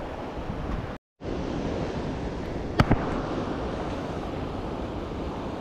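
Steady rushing of river rapids mixed with wind on the microphone. The sound cuts out for a moment about a second in, and a single sharp click sounds near the middle.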